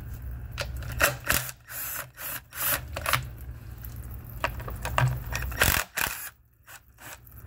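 Handheld power tool on a socket extension backing out the 8 mm transmission-pan bolts, in short irregular bursts with clicks and clatter between them.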